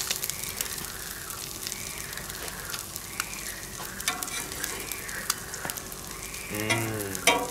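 Bacon and fried eggs sizzling on a hot gas griddle plate, a steady hiss full of small crackles from spattering fat. A metal spatula scrapes across the plate as a slice of toast is turned.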